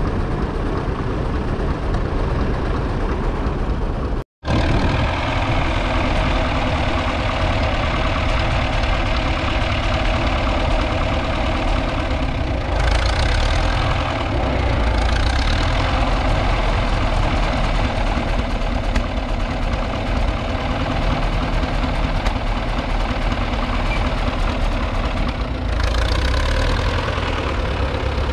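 1942 Fordson Model N's 4.4-litre four-cylinder petrol/TVO engine running steadily under load while pulling a two-furrow trailed plough. The sound drops out for a moment about four seconds in, then carries on unchanged.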